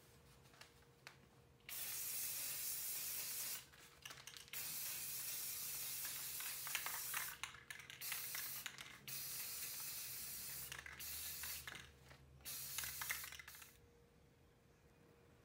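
Aerosol spray paint can spraying in several hissing bursts of one to four seconds, with short pauses between them.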